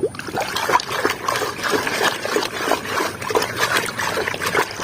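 Water splashing and trickling as a muddy toy car is swished and rinsed by hand, with many small irregular splashes and drips.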